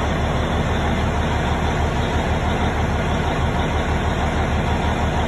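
The Cummins QSX15 inline-six diesel engine of a 500 kW generator set idling with a steady low rumble, the generator running at idle speed rather than its rated frequency.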